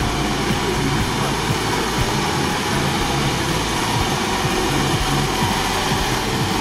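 Modified UAZ-469 off-road truck's engine running steadily under load as the truck crawls through deep mud.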